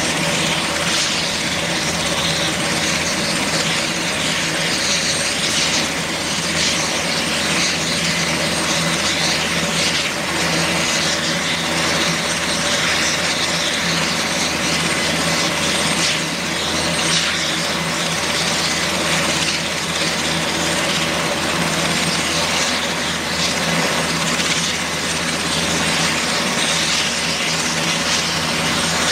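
Super Puma-family military helicopter running on the ground, its turbines and main and tail rotors turning steadily. It makes a constant high whine and hiss over a steady low hum, with no change in pitch or level.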